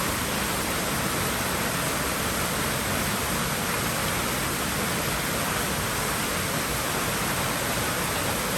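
Water in a swimming pool rushing steadily: an even, unbroken hiss with no separate splashes.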